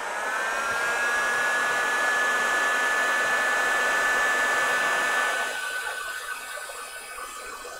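Bosch PHG 600 heat gun running, shrinking heat-shrink sleeves over thin soldered wires: its fan spins up with a rising whine, then holds a steady whine over a rush of air. About five and a half seconds in, the whine drops slightly lower and quieter.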